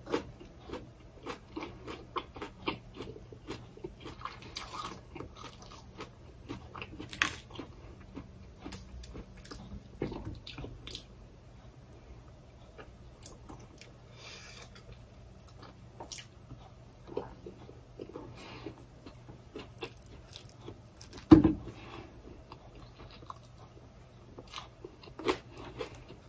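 A person chewing and biting food by mouth, with many small wet clicks and soft crunches at an uneven pace. About three-quarters of the way through there is one louder thump.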